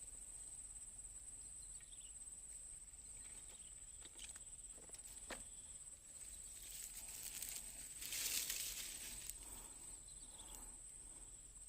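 Faint outdoor ambience with a steady high-pitched tone, a few light clicks, and a swell of rushing noise that peaks about eight seconds in.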